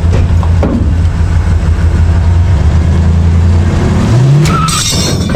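Ford F-150 pickup's engine straining steadily in drive against a bundle of 30 zip ties. About four seconds in its pitch climbs quickly as the engine revs up, then there is a short hissy burst near the end.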